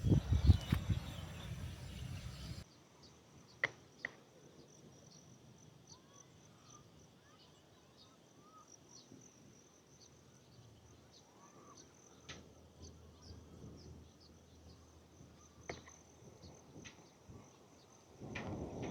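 Steady high-pitched insect drone with faint, scattered bird chirps and a few sharp clicks. The first couple of seconds hold loud low rumbling and thumps that cut off abruptly.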